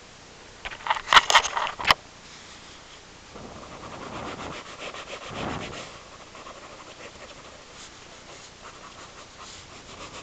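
Marker pen rubbing and scratching across paper in quick strokes, loudest from about three and a half to six and a half seconds in, with a cluster of loud sharp knocks and clatters about a second in.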